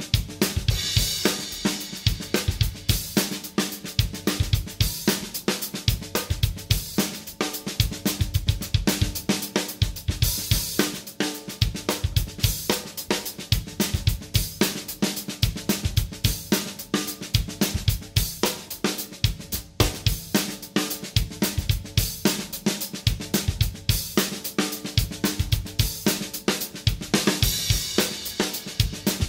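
Acoustic drum kit playing a basic groove in 7/8 at 110 BPM, with kick, snare and hi-hat and no other instruments. A brighter cymbal wash swells three times: about a second in, around ten seconds in, and near the end.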